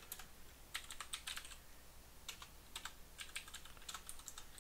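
Typing on a computer keyboard: short runs of quick keystrokes separated by brief pauses.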